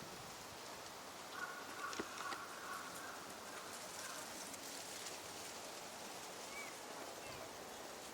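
Steady outdoor hiss from the open pond, with a faint held call, likely from a northern pintail, about a second and a half in, lasting about a second. A few small clicks come around two seconds in, and brief faint rising chirps near the end.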